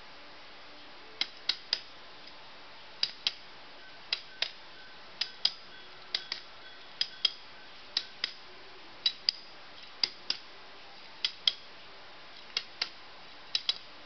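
Ratchet tie-down buckle being cranked: the steel handle is worked back and forth and the pawl clicks over the spool's teeth, sharp metallic clicks in pairs about once a second, starting about a second in.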